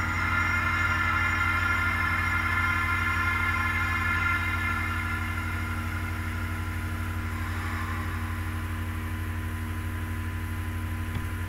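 Background music: sustained droning chords over a low, evenly pulsing bass.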